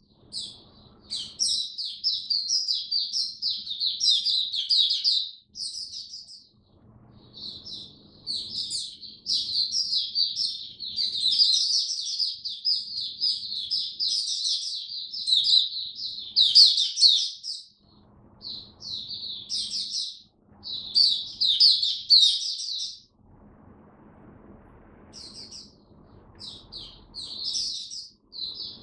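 White-eye singing a long, fast, high twittering song in extended phrases, broken by a few short pauses.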